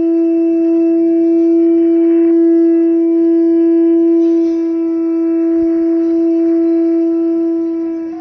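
Akash Jogini Dakini carved conch shell horn blown in one long, steady note, rich in overtones, breaking off near the end.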